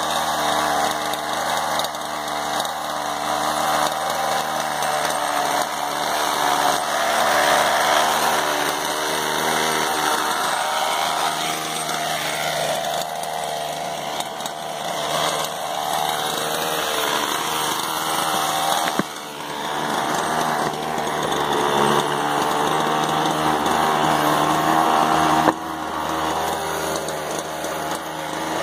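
Small two-stroke gas engine of a Rampage MT large-scale RC monster truck running continuously, revving up and down in the middle of the stretch and dipping briefly about two-thirds of the way through.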